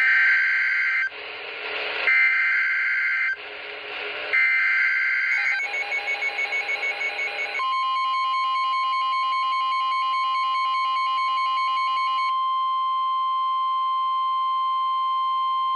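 NOAA Weather Radio Emergency Alert System alert on a weather radio: three short screeching SAME data bursts about a second apart, then a brief pulsing stretch, then from about seven and a half seconds in the steady single-pitch 1050 Hz warning alarm tone. The sequence signals that a warning broadcast follows, here a severe thunderstorm warning.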